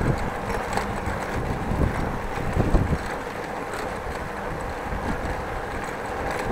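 Wind buffeting the microphone and a steady low rumble from bicycle tyres rolling over brick pavers, with a brief louder bump a little under three seconds in.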